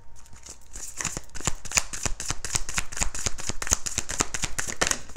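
A tarot deck being shuffled by hand: a quick run of card flicks and slaps, starting about a second in.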